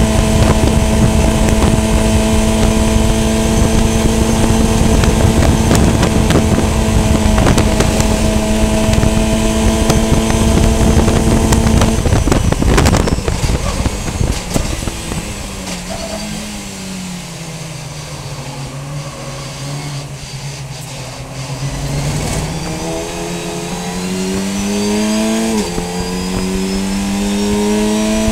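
VW Fun Cup race car engine heard onboard, held at a steady high speed, then lifted off about twelve seconds in and winding down to a low steady note while slowing. It then accelerates again, pitch rising, with upshifts at about 25 and 28 seconds.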